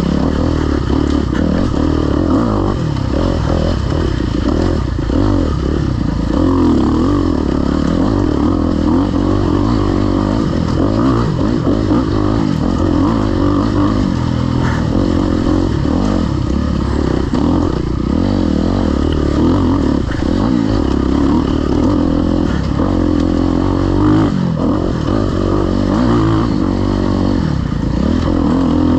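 Off-road dirt bike engine running hard, its pitch rising and falling continuously as the throttle is worked on and off.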